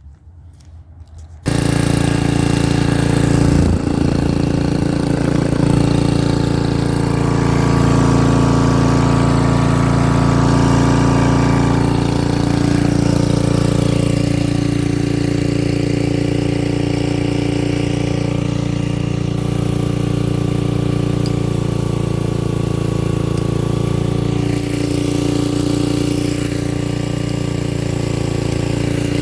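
Generac SV-2400 portable generator's Briggs & Stratton engine running steadily. It comes in abruptly about a second and a half in.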